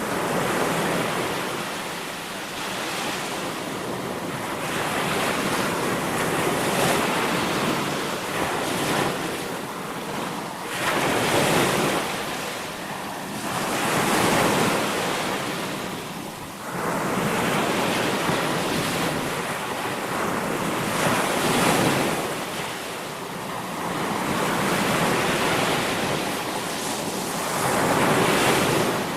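Sea waves breaking and washing ashore, the surf swelling and ebbing every few seconds, with wind on the microphone.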